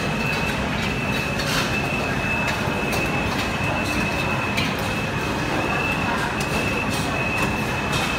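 Steady din of a busy indoor food court, with a constant high-pitched whine and occasional sharp clicks.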